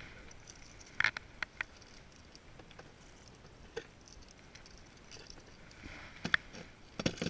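Scattered light clicks and small knocks from hands handling a fishing rod and lure: a few about a second in, single ones later, and a short cluster near the end.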